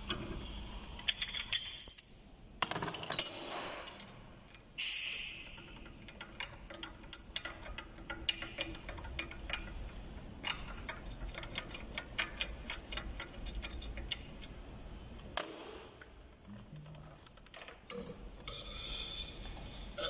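Hand tools clicking and metal parts clinking against a motorcycle fork leg held in a bench vise while it is taken apart, with a long run of rapid clicking in the middle and a short rushing scrape about five seconds in.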